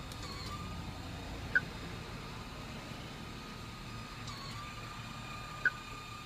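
Two short electronic beeps, about four seconds apart, from a car wash pay station's keypad as its buttons are pressed. Under them is the steady low rumble of the idling car.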